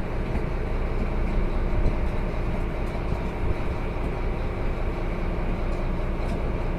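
Fishing boat's engine running steadily: a low, even drone with no change in speed.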